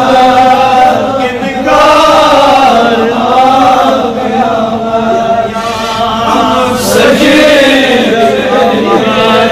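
A man chanting an Urdu naat, a devotional poem in praise of the Prophet, in long melodic phrases whose pitch bends up and down, with a short breath-like break about seven seconds in.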